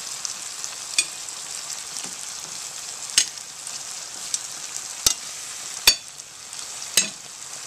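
Chicken thighs and sliced mushrooms sizzling steadily in a pan of white wine sauce. A spatula gives about five sharp knocks against the pan, the loudest about three and six seconds in.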